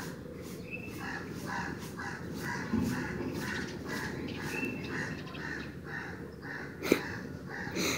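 Crows cawing in a rapid, even series of harsh calls, about two or three a second, raised at a cat on the ledge among them. A single sharp click about seven seconds in.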